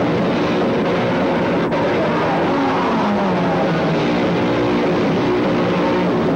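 Punk band playing live: distorted electric guitar and bass over drums, a loud, steady wall of sound.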